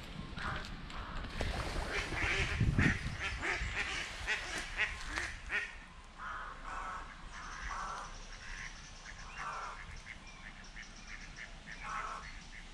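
Ducks quacking in a series of short calls, with small birds chirping higher up. A louder low rumble comes about two to three seconds in.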